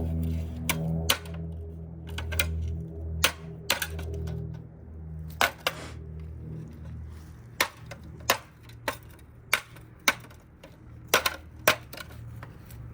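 A hammer repeatedly striking the plastic body of a Trifo robot vacuum: about twenty sharp knocks at an irregular pace, roughly one or two a second, as the machine is smashed apart.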